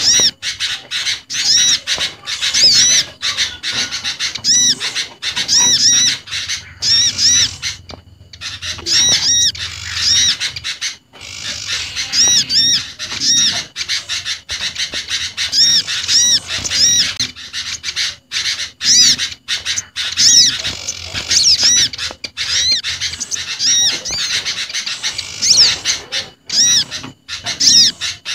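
A bird-lure recording of small garden birds calling in a dense mix: olive-backed sunbird, bar-winged prinia (ciblek gunung) and sooty-headed bulbul (kutilang) in a busy, excited chatter. It is made up of rapid, high-pitched arched chirps repeated in quick runs, with short lulls about eight and eleven seconds in.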